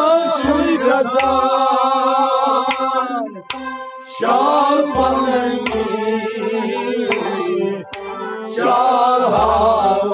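A solo voice singing a Kashmiri devotional song in long, wavering held phrases, with a few low drum strokes underneath. The phrases break off twice, briefly, before the singing picks up again.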